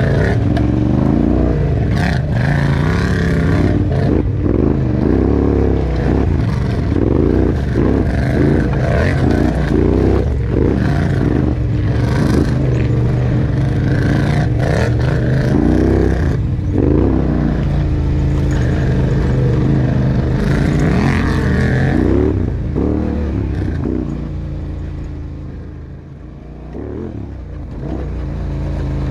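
Sport quad (ATV) engine revving up and down as it is ridden off-road, heard from the rider's seat with the machine's rattle and clatter over rough ground. The engine eases off about three-quarters of the way through and picks up again near the end.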